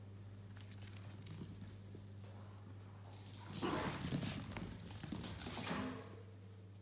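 Yorkshire terrier puppy's claws pattering and scrabbling on a laminate floor as it runs, from about three and a half seconds in for a couple of seconds, over a steady low hum.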